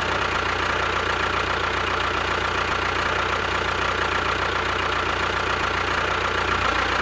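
A small motor running steadily at an even speed, with a constant whine over a low hum, just after starting up.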